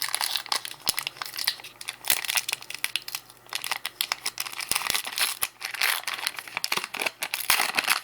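Trading card pack wrapper being torn open and crinkled by hand, a dense run of irregular crackles and rips.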